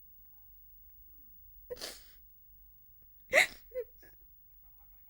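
A woman crying: two sharp sobbing breaths about a second and a half apart, the second louder, with a short voiced catch in the throat just after it.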